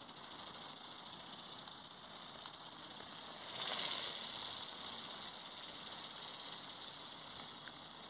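Helicopter flying overhead: a steady engine and rotor noise that grows louder for a moment a little past halfway.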